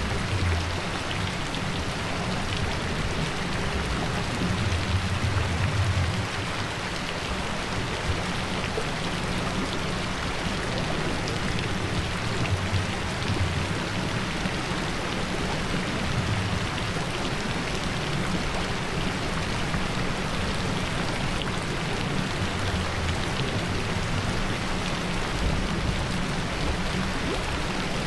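Steady rain noise, an even hiss, with a low rumble that swells and fades several times.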